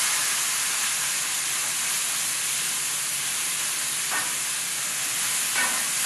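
Minced meat sizzling steadily as it sears in a pan over high heat, with two brief scrapes of a wooden spatula against the pan about four and five and a half seconds in.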